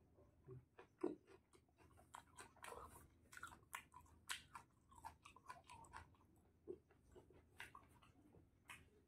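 A person chewing food with faint, irregular mouth clicks and smacks.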